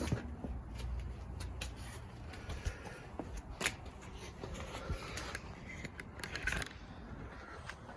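Faint handling noises: scattered small clicks and a few brief scrapes, with sharper ones about halfway and near the end.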